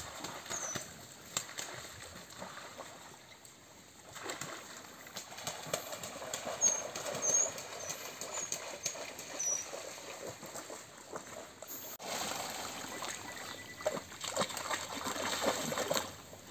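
Dogs swimming and paddling in a muddy pond, the water splashing and sloshing unevenly, with a few faint high chirps around the middle.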